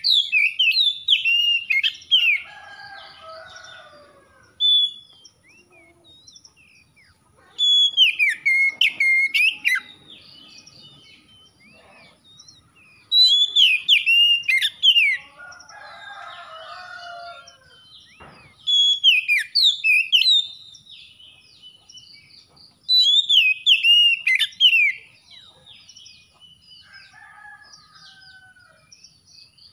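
Oriental magpie-robin singing: five loud phrases of sliding, whistled notes, each about two seconds long, with pauses of a few seconds between them. Softer, lower bird warbling fills some of the gaps.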